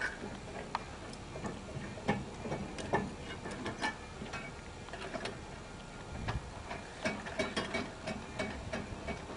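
Small, irregular metallic clicks and clinks of washers and nuts being handled and hand-threaded onto the mounting bolts of a diving-board stand.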